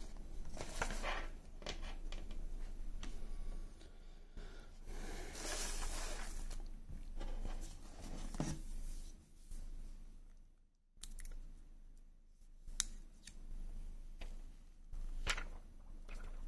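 Unboxing handling noises: packaging paper rustling and crinkling, then the phone and cable being handled on a wooden tabletop, with a few sharp light clicks near the end.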